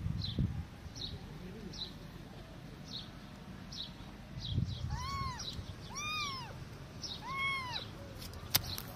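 Kitten mewing three times in the second half, each a short high-pitched call that rises and falls. A faint high chirp repeats about once a second behind it, and a couple of sharp clicks come near the end.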